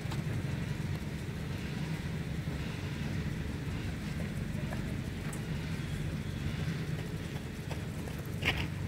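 Steady low outdoor rumble, with one brief sharp knock near the end, typical of a cricket bat striking the ball in a practice net.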